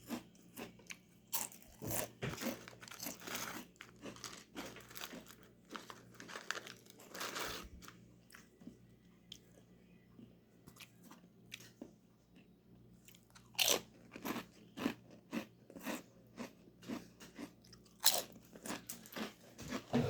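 Potato chips being bitten and chewed close up: clusters of crisp crunches, with a quieter pause of a few seconds in the middle before the crunching starts again.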